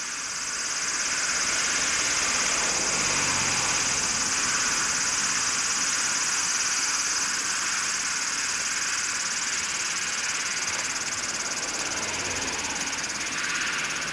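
A steady, dense high-pitched chorus of cicadas over road traffic, with passing vehicles swelling as low rumbles twice.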